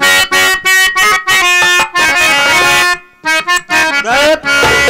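Hand-pumped harmonium playing a quick melody in short, separated reedy notes, the opening lead-in to a bhajan.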